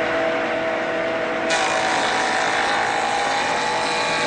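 Jointer running, its spinning cutter head shaving the edge of a board pushed steadily across it. The noise is steady, and a higher hiss joins in about a second and a half in.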